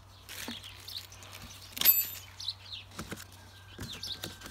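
Birds chirping in short high calls while packaging is handled by hand: a plastic bag of small hardware rustles, with light knocks of cardboard and plastic parts. About two seconds in comes one sharp click with a brief ring, the loudest sound.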